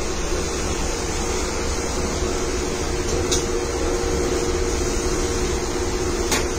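Universal testing machine's crosshead drive running steadily forward, a constant whir with a low hum, as it pulls a polymer strip apart in a tensile test. A faint click comes about three seconds in and again near the end.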